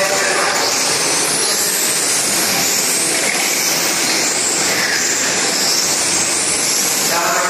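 Several electric radio-controlled touring cars of the 17.5-turn brushless motor class racing round the track. Their motors and drivetrains give a high whine that rises and falls as the cars accelerate, brake and pass, over a steady hiss of tyres.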